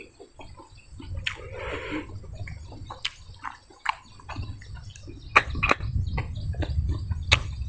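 Close-up eating sounds of a man working snails and chicken by hand: sharp clicks and wet smacks as the snail meat is sucked and picked from the shells and chewed. Birds chirp in the background, and a low rumble builds in the second half.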